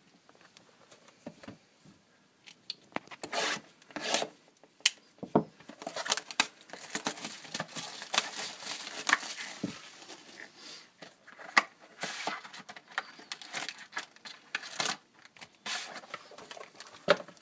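A sealed box of hockey trading cards being opened by hand: its wrapper tearing and crinkling and the cardboard rustling, with many irregular sharp clicks and scrapes, busiest in the middle.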